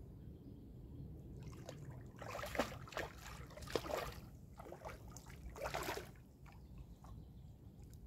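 A hooked carp thrashing at the water's surface close to the bank, throwing up splashes, with a run of splashes from about two seconds in and another near six seconds.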